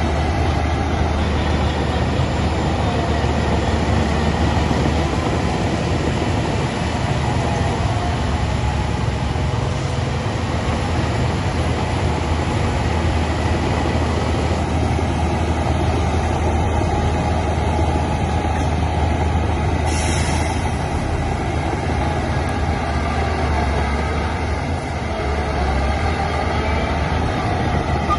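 Heavy diesel earthmoving machinery running steadily, a deep engine hum under a dense mechanical clatter. A short high hiss comes about twenty seconds in.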